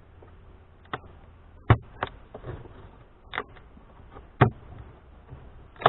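Metal hive tool prying apart beehive woodwork glued down with propolis: a series of about six sharp knocks and cracks as the seal gives.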